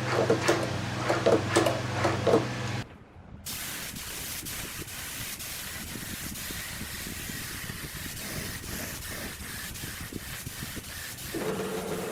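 A steady low hum with several sharp knocks, cutting off about three seconds in, then a steady hiss like spraying; the hum returns near the end.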